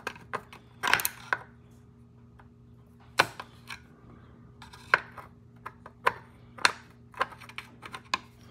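Hex tool clicking and tapping against the metal and plastic of a roof crossbar foot as it is fitted into the fastener: about nine sharp, irregular clicks, over a faint steady hum.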